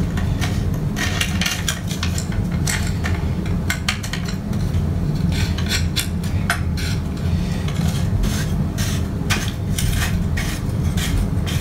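Small metal parts clinking and tapping irregularly as nuts are loosened on the scanner frame's rods, over a steady low hum.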